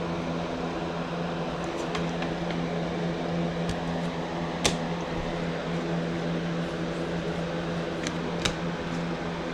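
A steady, even room hum, like a fan or air conditioner running, with a few brief light clicks, the sharpest a little under halfway through and another near the end.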